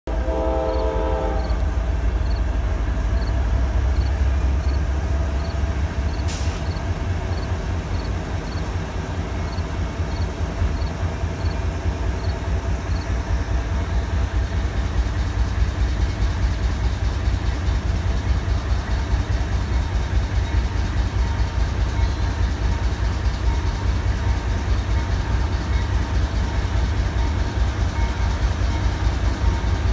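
CSX diesel-electric locomotive running out of sight, a steady low engine rumble throughout, with a short horn blast right at the start. A faint, even high ticking repeats about every two-thirds of a second through the first dozen seconds.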